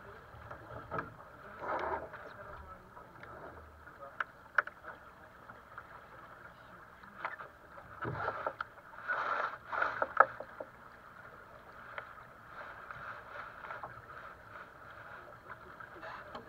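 Water rushing and splashing along the hull of a small sailboat under way, with a few sharp clicks. Louder swells of splashing come about two seconds in and again from about eight to ten seconds in.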